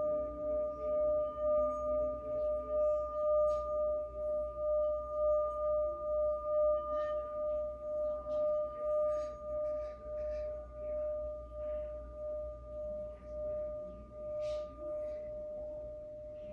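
Singing bowl sounding a single sustained tone that wobbles about twice a second, with a fainter upper overtone. It is played to clear the energy and fades a little near the end.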